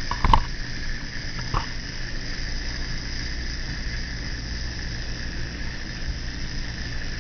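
A few sharp clicks, the loudest about a third of a second in, from the plastic wind-up R2-D2 toy being handled or wound, then a steady hiss.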